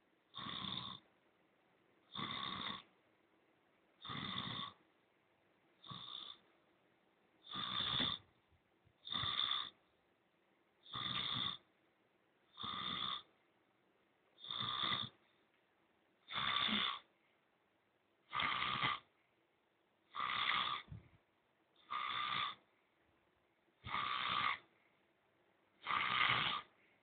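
A sleeping man snoring loudly in a steady rhythm, one snore about every two seconds.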